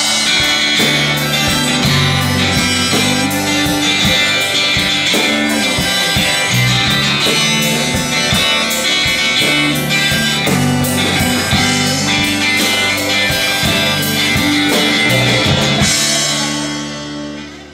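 Live rock band playing a loud instrumental passage: strummed acoustic guitar, electric guitar and a drum kit with steady cymbal hits over held low notes. The music dies away in the last second or two as the song ends.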